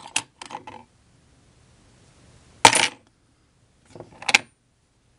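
Small hard pieces clicking and clinking as they are handled: buttonholer templates being taken from their case. A few light clicks at the start, a sharper clink about two and a half seconds in, and two more near the end.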